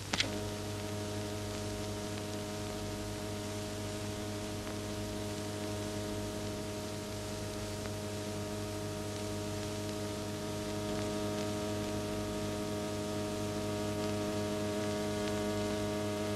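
Steady drone of one held tone with overtones, over the low hum and hiss of an old film soundtrack. It sets in with a click just after the start and holds unchanged.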